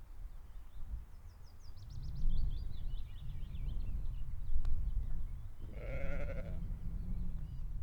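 A sheep bleats once, a single wavering call of under a second about six seconds in. A bird twitters with a run of high chirps in the first half, over a low rumble.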